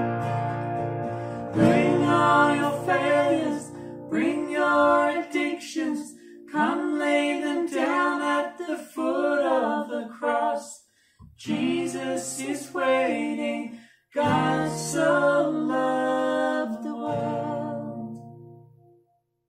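Slow worship song: a woman singing in phrases over acoustic guitar chords, the music dying away near the end.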